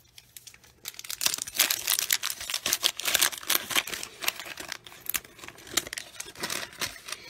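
Paper wax-pack wrapper of a 1990 Bowman baseball card pack crinkling and tearing as it is opened, a dense run of crackles starting about a second in.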